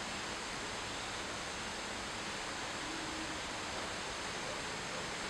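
Steady, even hiss of background noise with no distinct event standing out.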